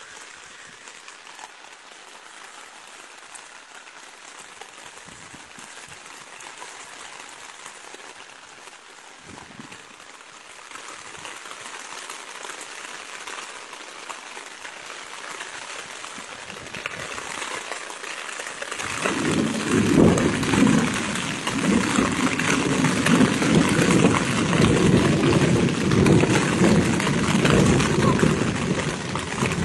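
Rain falling steadily, growing into a heavy downpour about 19 seconds in.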